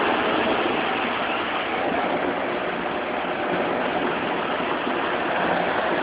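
A car driving slowly: a steady rush of engine and tyre noise on concrete.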